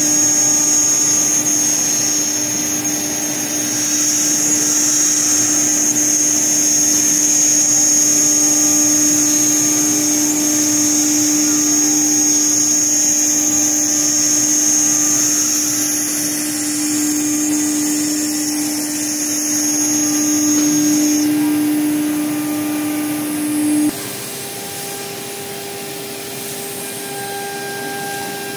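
CNC router spindle running with a steady whine over a rush of noise as the bit cuts letters out of an acrylic sheet. About 24 s in the sound drops abruptly to a quieter steady hum at a higher pitch.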